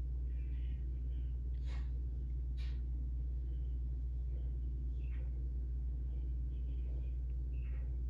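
Steady low hum, with a few faint brief noises over it.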